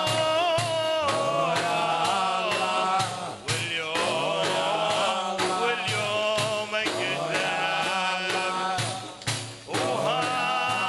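Kuwaiti folk music: several voices singing together over a steady low beat about once a second, with sharp claps or hand-drum strokes.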